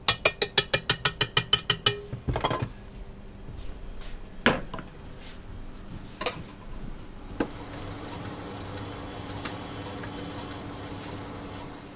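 Stand mixer's wire whisk rapped against the rim of its steel bowl about a dozen times in quick succession to knock off beaten egg white, followed by a few scattered clanks of bowls and utensils. A steady kitchen hum in the last few seconds.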